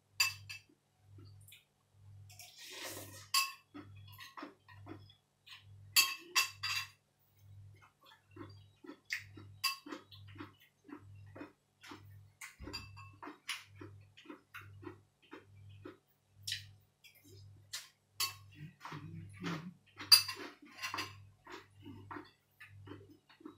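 Metal spoon clinking and scraping against a ceramic bowl while eating noodles in curry, with scattered light clicks and a few sharper clinks, the loudest about three quarters of the way through. A faint low hum pulses regularly underneath.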